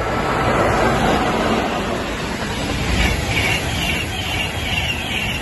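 High-speed electric passenger train passing close at speed, a Pendolino: a loud rush of wheel and air noise. About three seconds in it gets suddenly louder, with a steady beat of pulses about two and a half a second as the carriages go by.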